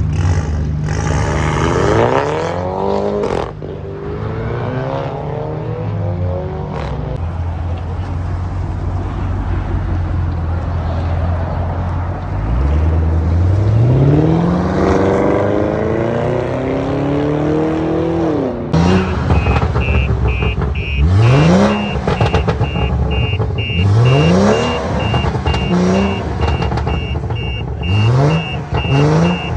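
Performance car engines launching hard, the revs climbing quickly and breaking off at each gear. In the later part a parked car is revved in a series of short blips while a rapid electronic beeping chime sounds steadily.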